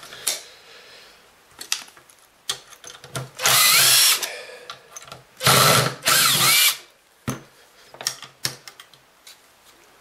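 Makita 18V cordless driver running in three short bursts, each spinning up in pitch at its start, as it backs screws out. Light clicks and knocks of the tool and parts being handled come before and after the bursts.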